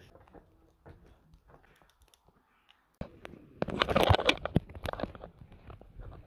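Rustling, crackling handling noise on the handheld camera's microphone as the camera is swung round, loudest for a second or so just past the middle, with a few scattered clicks before and after.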